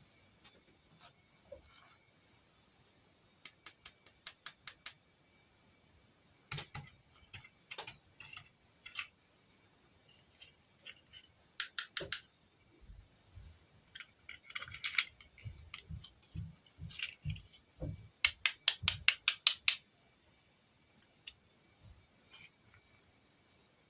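Small hard plastic toy pieces and packaging being handled: scattered taps and clicks, with a few quick runs of rapid clicking and some soft thuds.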